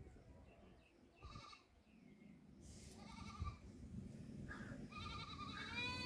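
Indian ringneck parrot giving several short, bleat-like calls, spaced out at first and coming closer together toward the end.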